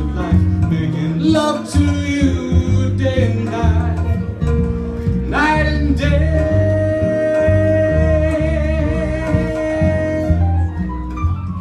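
Live jazz band playing: an upright double bass walks a plucked line, changing note about twice a second, under keyboard and a melody. About five seconds in, a note scoops upward and is held, wavering, for about four seconds.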